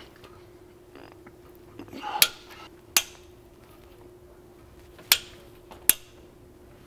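Sharp metallic clicks of a torque wrench and socket tightening the steering rack bolts: four clicks in two pairs, each pair about a second apart.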